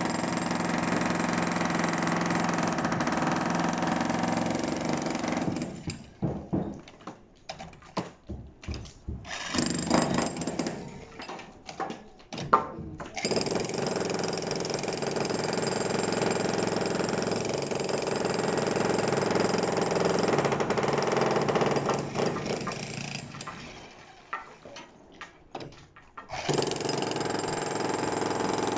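Dongcheng electric demolition hammer chiselling a hard concrete floor slab, running in long steady spells. Twice, about six seconds in and again shortly before the end, it stops and starts in short bursts for a few seconds before running steadily again.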